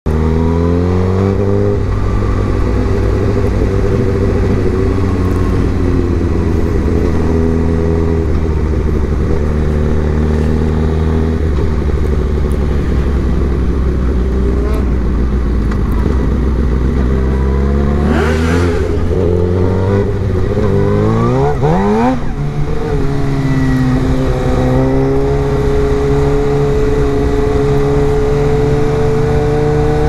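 Suzuki GSX-R 1000 inline-four motorcycle engine running under way, its note stepping up and down in pitch several times in the first ten seconds. Around twenty seconds in it sweeps sharply up in pitch, then holds a steady higher note.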